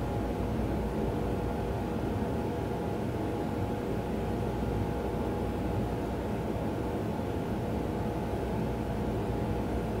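Steady low hum with a faint hiss and no other events: room tone.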